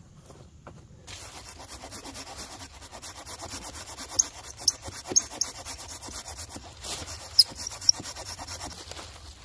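Small hand saw cutting through a fallen lichen-covered branch, in quick, steady back-and-forth strokes starting about a second in, with a few sharp ticks among them.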